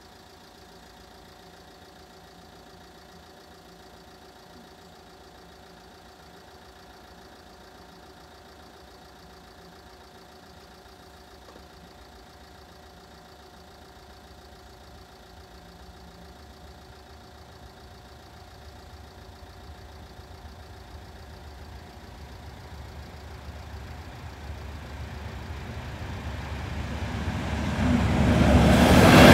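A Class 37 diesel locomotive's English Electric V12 engine, first a steady distant drone, then growing louder from about halfway through as the locomotive approaches with its test train. It is loudest near the end as it reaches the crossing.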